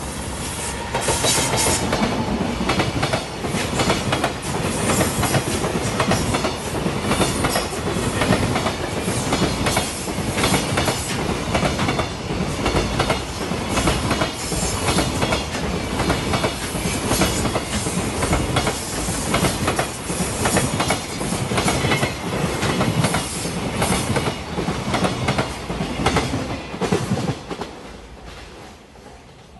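JR Freight EF210 electric locomotive passing close by at speed, hauling a long container freight train, with the wagons' wheels clattering over the rail joints. The sound swells about a second in, stays loud and steady as the wagons go by, and fades near the end as the train draws away.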